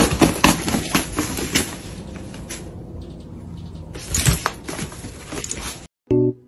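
Rustling and scrabbling of a suitcase's fabric lining as a hairless cat thrashes about inside it, busiest in the first second and a half and again about four seconds in. It cuts off suddenly near the end and a few piano notes begin.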